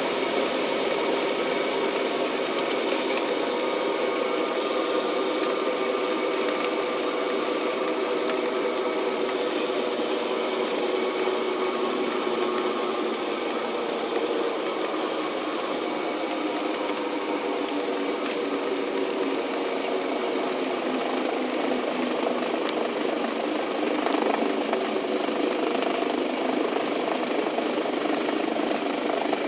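The twin six-cylinder Lycoming engines of a Piper Aztec running at low taxi power, a steady drone heard inside the cabin, swelling slightly about three-quarters of the way through.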